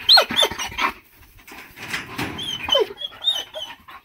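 A dog whining: short, high-pitched, wavering whines in the first second, then a second run near the end, mixed with a few falling whimpers.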